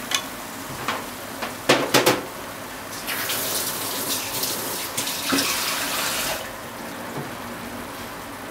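Beef and onions in ketchup sauce sizzling in a frying pan, with wooden chopsticks clicking and knocking against the pan, loudest about two seconds in. The sizzle swells louder for a few seconds in the middle, then settles back to a steady hiss.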